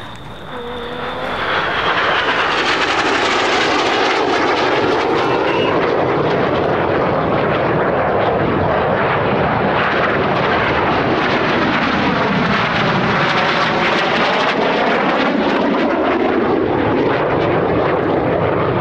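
BAE Hawk T1 jets flying low passes, their turbofan engines giving a rushing jet noise. It swells about a second in, then stays loud, with a sweeping, phasing quality as the aircraft pass and turn.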